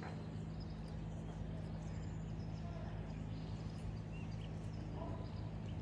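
Quiet outdoor ambience: a steady low hum with faint, scattered bird chirps.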